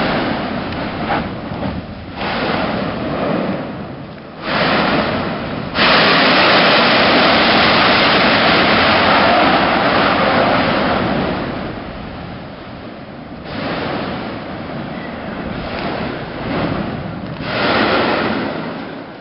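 Erupting Mount Yasur volcano: a rushing roar of gas and lava spatter blasting from the crater vent, coming in surges. The loudest starts abruptly about six seconds in, holds for several seconds and dies away.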